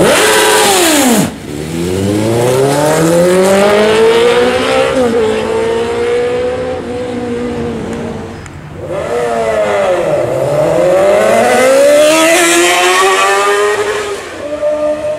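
Sport motorcycle engines accelerating hard in several short takes. The engine pitch climbs steadily, with small dips at the gear changes, and drops steeply once near the start.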